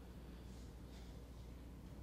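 Faint room tone with a steady low hum and light hiss; no distinct event.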